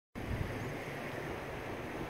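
Steady wash of sea water around a small boat, with wind buffeting the microphone.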